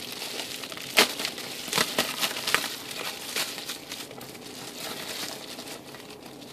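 Bubble-wrap packaging crinkling and rustling as it is handled and pulled off a plastic CD case, with a few sharp clicks, the loudest about a second in.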